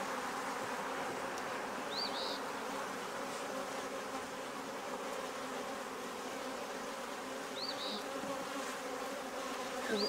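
Many honeybees buzzing steadily around an opened hive: a continuous, even hum of bees in flight.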